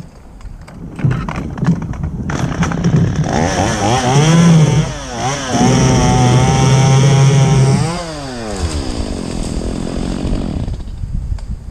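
Chainsaw idling, then revved up to full throttle and held there for several seconds as it cuts through a limb, with a brief dip in revs midway. It then drops back to idle and stops near the end.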